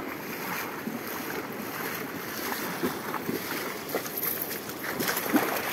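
River water rushing steadily over a stony bed, with splashing from someone wading through the shallows.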